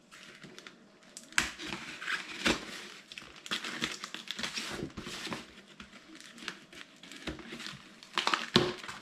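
A knife slitting the packing tape on a cardboard box, with the cardboard scraping and crinkling as it is worked, and a few sharp knocks from the box being handled, the loudest near the end.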